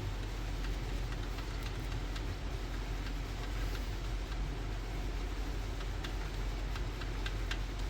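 Steady low hum with an even background hiss and a few faint scattered ticks.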